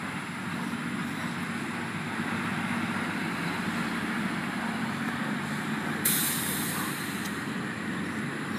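Steady outdoor traffic noise from a nearby road. About six seconds in, a sharp high-pitched hiss starts suddenly and lasts a little over a second.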